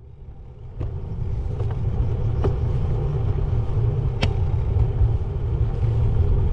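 Steady low rumble of wind and road noise on a bike-mounted action camera while riding a road bike, fading in over the first second, with a few sharp clicks.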